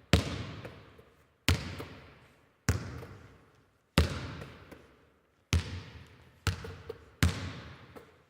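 Seven sharp thuds at uneven intervals, each fading away over about a second.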